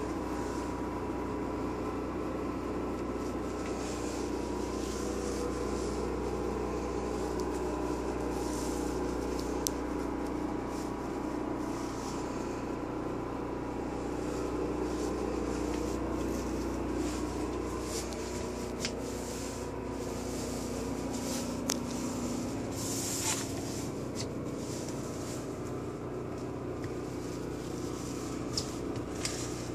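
Steady mechanical hum with a deep low drone and a few steady tones, which eases a little about two-thirds of the way through, with scattered faint clicks and knocks.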